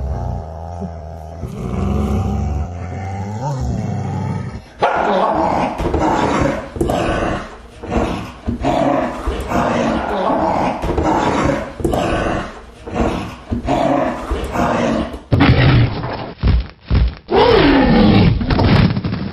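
Creature growls and roars from horror sound effects, in several spliced clips: a low growl, then a long run of repeated snarling growls, then another growl with a wavering pitch near the end.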